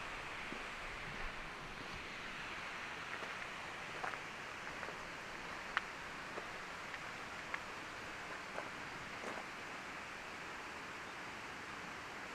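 Steady, even rushing hiss of outdoor ambience, with a few faint clicks and taps scattered through it; the sharpest click comes a little before the middle.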